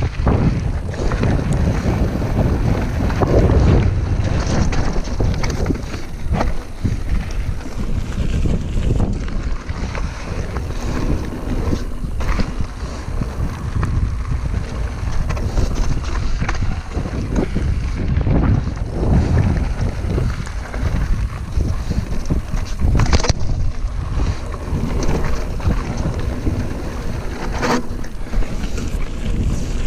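Wind buffeting the microphone as a mountain bike rolls over a loose gravel trail, with steady tyre rumble and the rattle of the bike. A few sharp knocks come through, the clearest about three-quarters of the way through and near the end.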